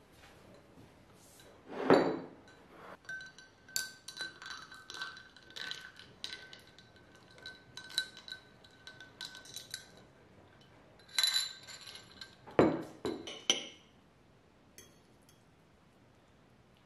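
A long metal spoon stirring a drink in a tall drinking glass, clinking against the glass again and again so that the glass rings. A heavy knock on the wooden tabletop comes about two seconds in and another about three-quarters through.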